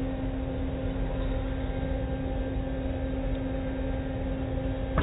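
Automatic tunnel car wash machinery running, a steady hum with one constant tone over a wash of noise, heard from inside the car.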